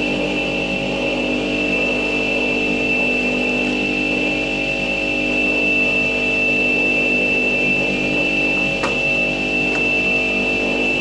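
Electric wet tile saw running freely with no load, its diamond blade spinning at a steady speed with a strong high whine over a steady motor hum. Two light knocks come near the end as a metal car stereo is set down on the saw table.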